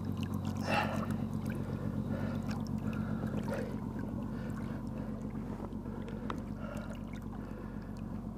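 A boat's motor running with a steady low hum, under scattered light knocks and clicks of gear being handled in the boat.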